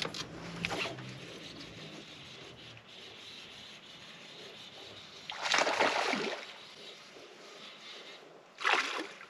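A small bass hooked on a plastic worm splashing at the surface as it is reeled to the boat: two loud splashes about three seconds apart, the first longer. Light clicks at the start come with the cast.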